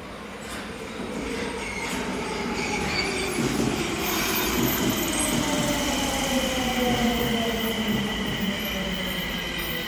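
Nagoya Municipal Subway 5050-series electric train, refitted with a Mitsubishi VVVF inverter believed to be hybrid SiC, pulling in and slowing. The motor and inverter whine falls steadily in pitch over the rumble of the wheels on the rails, growing louder as the cars come alongside.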